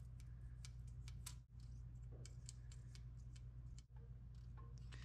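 Faint, irregular light metallic clicks and ticks as a feeler gauge blade is slid and tapped under a steel straight edge across the engine block deck, checking the deck for flatness.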